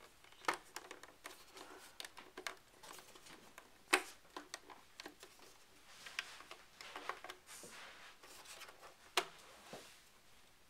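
Scattered clicks, taps and light rustling of hands working inside a Power Mac G5 case, plugging the power supply's cable connectors into their sockets, with a few sharper clicks among them.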